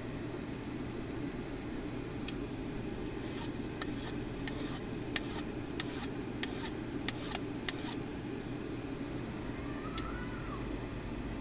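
Hand file scraping in short, quick strokes across the hot steel point of a freshly forged center punch, about a dozen strokes bunched in the middle, over a steady low hum.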